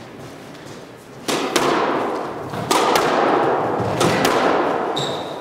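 Squash rally: sharp, echoing cracks of the ball struck by racquets and hitting the court walls, four hard hits in pairs after a quiet first second, with a short high squeak near the end.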